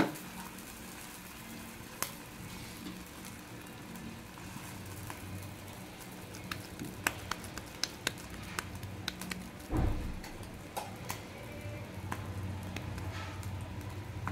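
Potato tikki frying in shallow hot oil in a pan, a faint steady sizzle with scattered small pops and clicks and a dull knock about ten seconds in.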